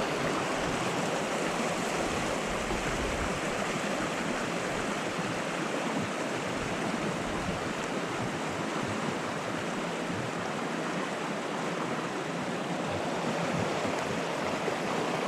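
Steady rushing of a mountain creek flowing over rocks.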